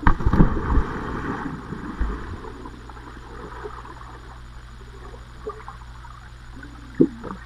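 A person plunging into water, heard through an underwater action camera: a sudden heavy splash and rush of bubbles lasting about a second and a half, then a muffled underwater hiss, with one sharp knock near the end.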